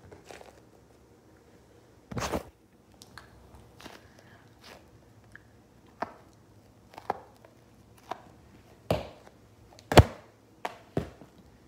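Sticky squishy glob balls thrown against a wall, slapping against it and sticking, and squished between the hands. There is a string of irregular sharp slaps, roughly one a second, the loudest about ten seconds in.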